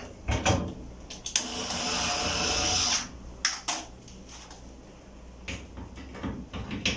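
Cordless drill-driver running for about a second and a half, turning a screw on a clothes dryer's drum support bracket. Scattered knocks and clatter of parts being handled come before and after it.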